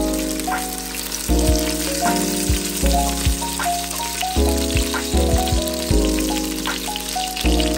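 Sausages sizzling as they are seared in the inner pot of a Ninja Foodi Max multicooker, under background music with slow chord changes and a deep bass.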